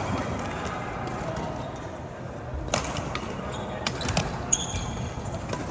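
Badminton rally: sharp racket strikes on the shuttlecock, several in quick succession about halfway through, over faint background voices.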